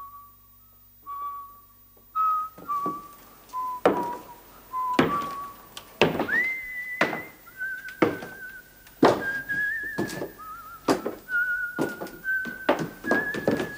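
A high, whistled tune with a wavering vibrato over a steam locomotive pulling away, its chuffs starting about a couple of seconds in and coming faster and faster.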